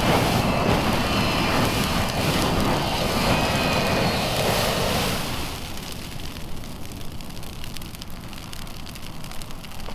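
Pulsefire handheld flamethrower shooting a jet of burning fuel into a dry bush: a loud, steady rushing hiss for about five seconds that then stops, leaving the quieter crackle of the bush burning.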